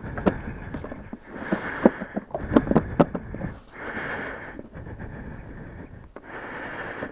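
Hands fitting the plastic airbox top on a motorcycle: a run of knocks and clicks, bunched together a couple of seconds in, with stretches of steady hiss between them.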